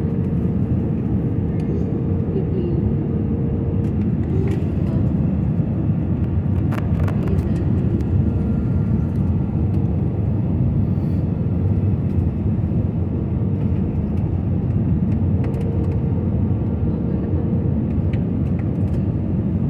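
Airliner cabin noise during the descent to land: the steady rumble of the jet engines and airflow heard from inside the cabin, with a faint hum that comes and goes.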